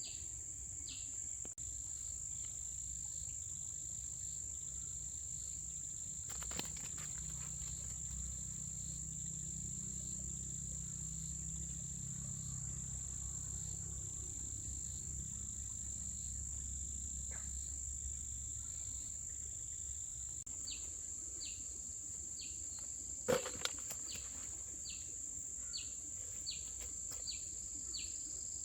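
Insects chirring in a steady high drone, with a short chirp repeating about twice a second near the start and again near the end. A low rumble rises through the middle, and two sharp knocks cut in, the louder one near the end.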